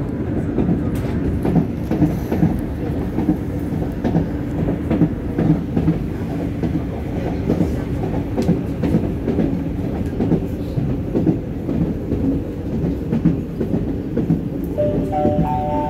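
Metro de Madrid Line 9B train running, heard from inside the car: a steady low rumble from the running gear with irregular clicks of the wheels over the track. Near the end a rising three-note chime from the train's announcement system begins.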